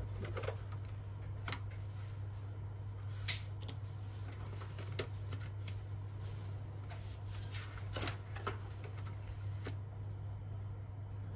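A steady low hum of room tone, with scattered light clicks and taps from small objects being handled, about a dozen spread irregularly.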